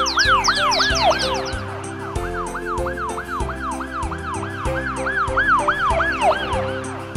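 Cartoon ambulance siren sound effect: a fast warbling siren that rises and falls about three times a second. It plays over background music with a steady beat.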